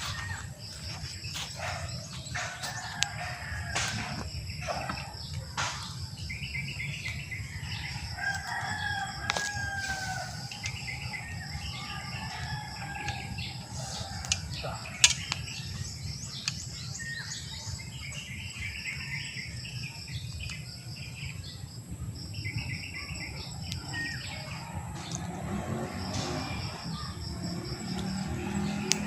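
A rooster crows once, a drawn-out call about a third of the way in, while small birds chirp in repeated high phrases throughout. Scattered sharp clicks and knocks, the loudest about halfway, sit over a steady low rumble.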